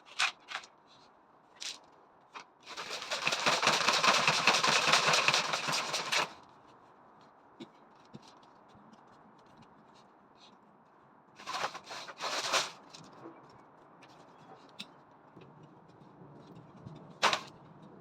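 A few seconds of loud scraping, with shorter scrapes later and scattered light knocks and clicks.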